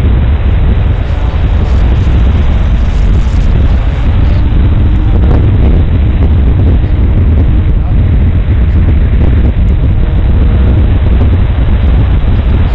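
Loud, steady wind rush and rumble from a radio-controlled Extra 330S aerobatic model airplane in flight, as picked up by a camera riding on the plane.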